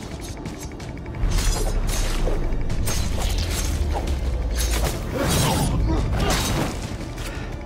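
Fight-scene soundtrack from a TV action series: sound effects of blows and swishes over dramatic score music, with a deep low drone that swells in loudly about a second in.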